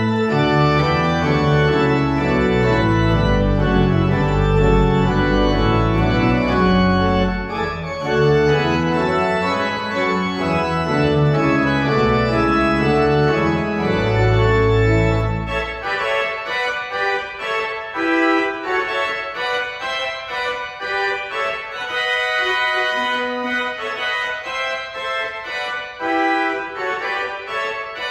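Organ music: full chords over a deep pedal bass, then lighter, higher playing after the bass drops out about halfway through. It is played as the closing postlude of a church service.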